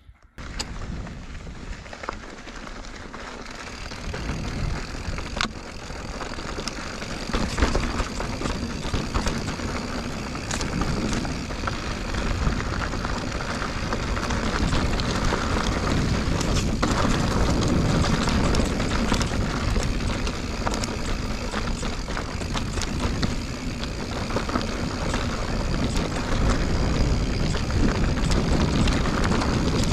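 Mountain bike ridden over dirt and rock singletrack: rushing wind on the chest-mounted action camera's microphone mixed with tyre noise and frequent clicks and rattles from the bike. It starts abruptly and gets louder over the first fifteen seconds or so as the pace picks up.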